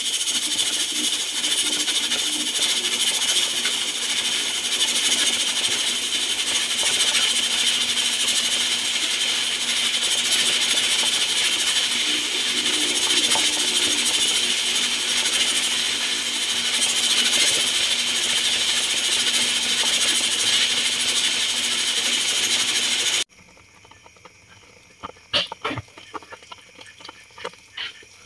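Pressure cooker hissing steadily as steam vents from its pressure valve, the sign that it is up to pressure. About 23 seconds in the hiss cuts off suddenly, leaving the quieter popping and bubbling of a pot boiling.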